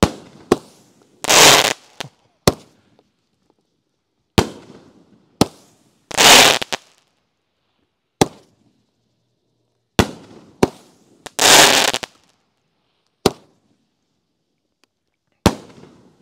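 500-gram 'Noisy Boys' firework cake firing its rotating mines and breaks: sharp bangs and three longer rushing blasts of about half a second each. The pattern of shots repeats about every five seconds, with short silences between.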